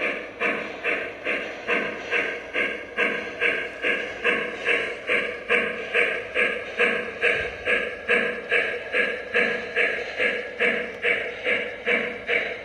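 Lionel Western Maryland Shay model steam locomotive's sound system playing steady steam chuffs, a little over two a second, as the engine runs along the track.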